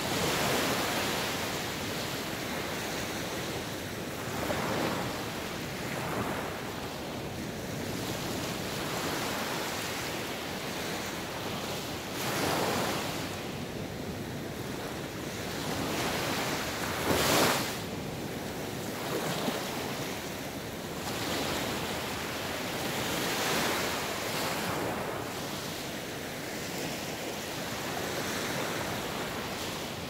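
Ocean surf: waves breaking and washing ashore in a steady rush that swells every few seconds, the loudest wave about seventeen seconds in.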